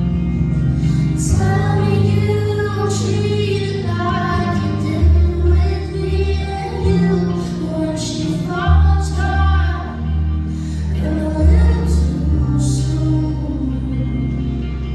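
Live pop music: a woman singing over sustained bass notes, with a short percussive hit every couple of seconds.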